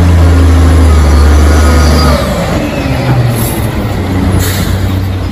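Garbage truck's diesel engine running loudly as the truck drives close past, a steady low drone that changes about two seconds in. Two short hisses of air, like air-brake releases, come about three and a half and four and a half seconds in.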